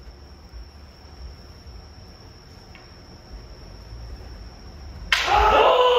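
A steady, thin, high-pitched trill or whine throughout. About five seconds in, a loud, sudden kiai shout from a kendo kata practitioner, held for about a second.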